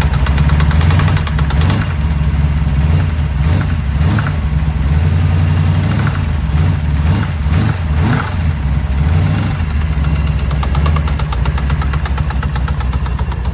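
Small-block Mopar V8 running with a rapid, rough metal-to-metal knock, a hard-contact noise of unknown cause that came on suddenly while driving and is bad enough that the engine may have to come out.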